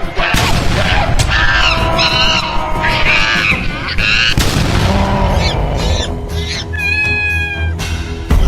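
Background music with a heavy low beat, with short high-pitched sound effects layered over it.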